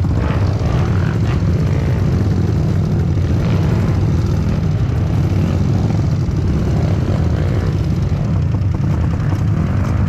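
Dirt bike engine running steadily, a loud continuous low drone with no break or clear change in pitch.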